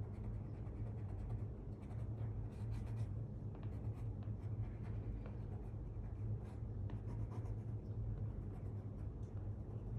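Coloured pencil scratching across paper that is wet with ink wash, in many short irregular strokes, over a steady low hum.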